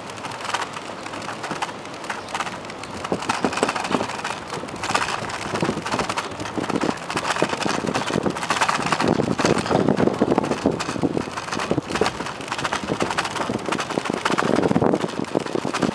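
Bicycle rolling over wooden boardwalk planks: a dense, uneven rattle of clicks as the tyres cross the board joints, with wind buffeting the microphone. It gets louder about three seconds in and again in the second half.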